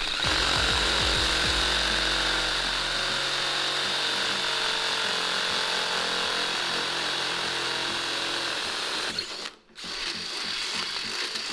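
Electric drill running a large twist bit through the sheet-metal radiator support, enlarging a pilot hole without stepping up through smaller bit sizes. It gives a steady whine for about nine seconds, stops briefly, then starts again.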